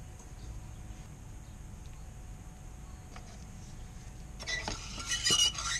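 Small metal parts and hand tools clinking against each other, a quick cluster of sharp clinks near the end with a brief ringing tone, after a few seconds of faint handling ticks.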